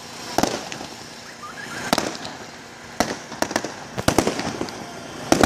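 Fireworks display: aerial shells bursting overhead in a string of sharp bangs, about eight in all, coming closer together after the middle.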